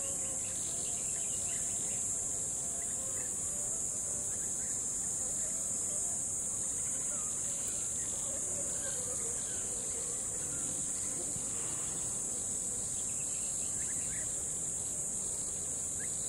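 Crickets trilling in a continuous high-pitched chorus that does not let up, over a low steady rush of river water.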